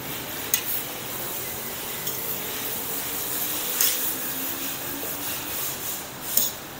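Cold tap water pouring from a plastic jug into a pot of soaking rice vermicelli, then a hand swishing and pressing the noodles under the water. A few sharp clicks fall in between, about half a second in, just before the four-second mark and near the end.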